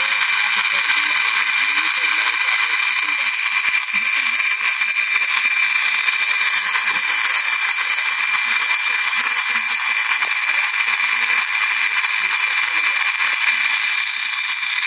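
Small brushed DC throttle body motor from a 1993 Mercedes 600SL, running steadily on the bench with an even high-pitched whine. It spins freely now that its stuck, dirty brushes have been trimmed and their guides cleaned.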